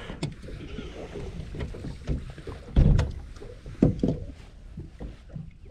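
Small waves lapping and slapping against a boat's hull, with irregular low knocks, the loudest about three and four seconds in.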